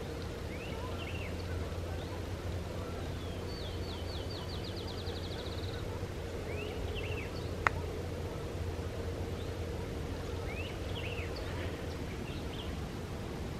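Songbirds calling in spring woods: short swooping notes repeated a few times and one rapid, even trill of about a dozen notes, over a steady low background rumble. A single sharp click sounds about halfway through.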